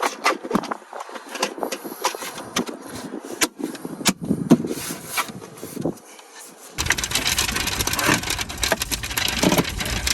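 Clicks, knocks and scrapes of plastic trim being handled and pushed back into a truck's center console. About seven seconds in, a steady rushing noise with a low rumble starts abruptly.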